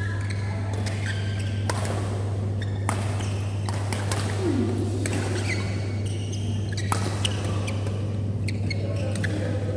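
Badminton rally: repeated clicks of rackets striking a shuttlecock and brief squeaks of shoes on the court mat, over a steady low hum. The loudest hit comes about seven seconds in.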